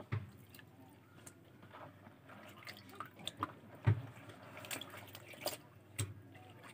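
Faint wet clicks, drips and small splashes of fish being cleaned by hand in a basin of water, with a sharper tap about four seconds in and another near the end.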